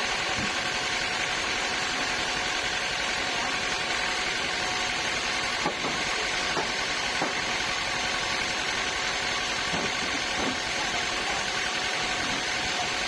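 Sawmill machinery running steadily, a constant mechanical hum and hiss with a few faint knocks about halfway through.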